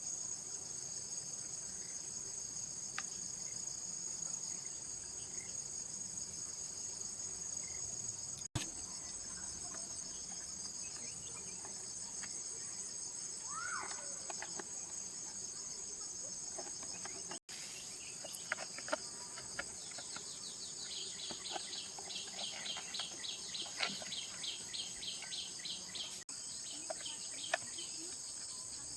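Steady high-pitched chorus of insects chirping. Over the second half, a series of small clicks and a fast run of light ticks, about five a second, join in and stop again.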